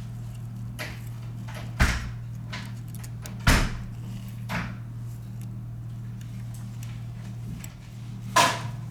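A few short sharp knocks and clicks of tools and small parts being handled and set down on a repair bench, four in all, the loudest about three and a half seconds in, over a steady low electrical hum.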